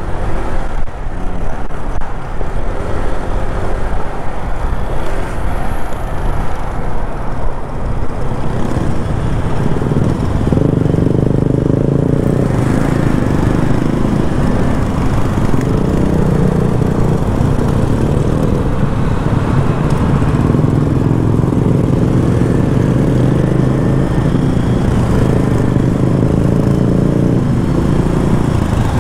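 Motorcycle engine running under way, mixed with wind noise on the microphone. About ten seconds in, the engine settles into a steady drone.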